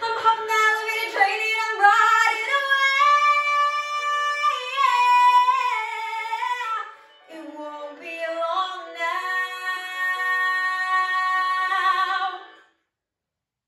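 A young woman singing a musical-theatre song solo in long sustained phrases with vibrato. The line breaks off briefly about seven seconds in, then she holds one long high note that ends about twelve and a half seconds in.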